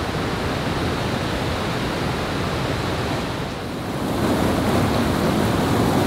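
River water rushing over a low dam spillway and through white-water rapids below, a steady loud rush that gets louder about four seconds in. The river is running high and fast from a dam's generation release.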